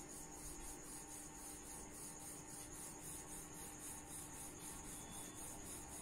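Colour pencil shading on cartridge paper: a faint, rhythmic scratching of light back-and-forth strokes, about four a second.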